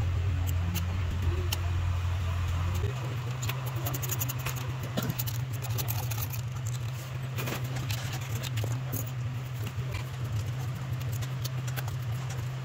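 Scattered small clicks and scrapes of a metal blade and tweezers against the phone's camera parts and metal holder, over a steady low electrical hum that steps up in pitch about three seconds in.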